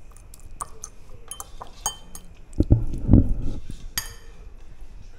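A metal fork and other cutlery clinking and tapping against ceramic plates and pots, a string of short sharp clinks with a bright ringing one about four seconds in. A dull low thump about three seconds in is the loudest sound.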